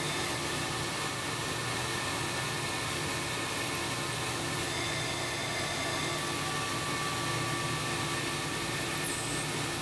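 Metal lathe running steadily as a long drill bit fed from the tailstock bores a deep hole into a spinning chrome-plated steel shaft: an even machine hum and hiss with a few faint steady tones.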